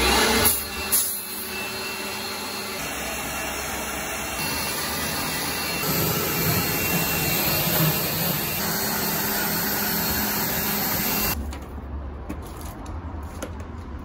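Pressure washer spraying water onto a car's alloy wheel and tyre, a steady hiss of the jet and pump that stops about eleven seconds in, leaving a quieter background.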